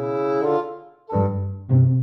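Music of low, held notes in two phrases, with a short break about a second in.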